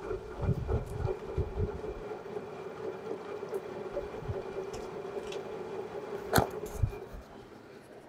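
LG front-load washing machine filling: water runs into the drum through the inlet valve with a steady hiss and hum, with a few low thumps in the first two seconds. Near the end comes a sharp click and the fill cuts off: the replaced water level sensor has shut off the water at the right level.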